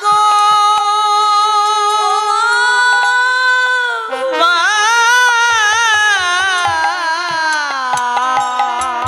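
Bengali devotional kirtan music: a long, wavering melodic line held over a steadier accompaniment, sliding lower in the last couple of seconds, with hand-drum strokes beneath.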